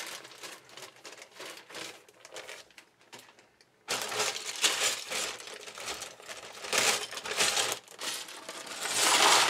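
Plastic bag crinkling and loose LEGO bricks clattering as a bag of white pieces is handled and tipped into a cardboard box. The sound drops almost to nothing about three seconds in, then comes back busier, loudest near the end as the bricks pour out.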